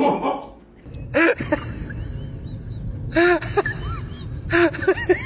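Several short bursts of a voice, each made of quick notes that rise and fall in pitch, over a steady low rumble.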